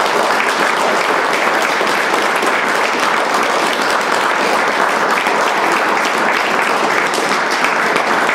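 A hall full of people applauding steadily: dense, even clapping from a seated audience.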